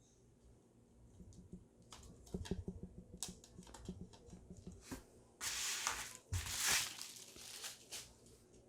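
Hands handling a CD in its case: a run of light plastic clicks and taps, then two short, louder rustles about five and a half and six and a half seconds in.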